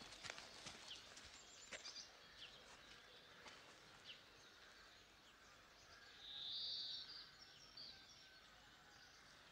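Faint outdoor quiet with small birds chirping now and then, and one longer, louder high call about six to seven seconds in.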